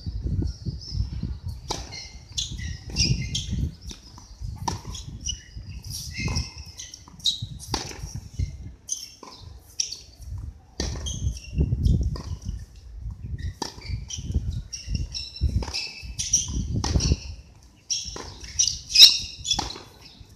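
Tennis ball struck by racket strings and bouncing on a hard court, in irregular sharp pops every second or so, the loudest near the end. Short high chirps or squeaks and a low rumble sound throughout.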